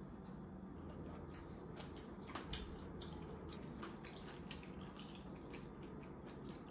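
Juice poured from a bottle into a glass mug, the liquid splashing in, with scattered clicks and taps of the bottle and glass.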